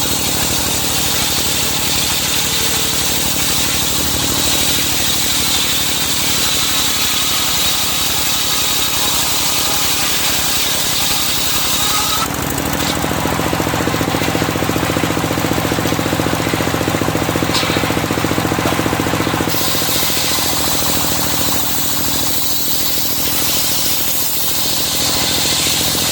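Serkel (portable circular sawmill) running while sawing medang wood: a steady engine with a fast, even knocking beat and a high hiss over it. From about twelve seconds in, for some seven seconds, the engine note deepens and the hiss drops away, then the earlier sound returns.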